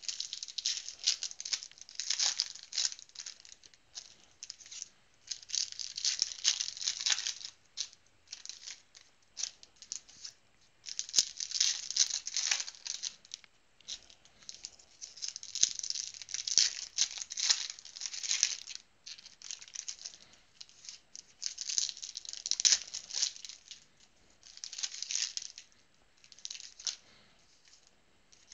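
Trading-card packs and cards being handled: foil wrappers crinkling and tearing and cards shuffling, in irregular bursts a second or two long with short pauses between.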